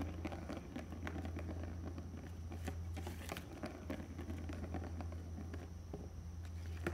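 A Maine Coon kitten at play: irregular light taps and scratches, with a brief rustle about halfway through and a sharper tap at the very end, over a steady low hum.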